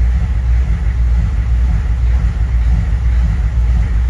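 6.5L V8 diesel of a 1995 GMC 3500 HD idling at about 700 rpm, part-way through warm-up, with a loping, uneven idle that sounds like a gas engine with a big cam. The owner links the lope to a newly installed remanufactured fuel injection pump.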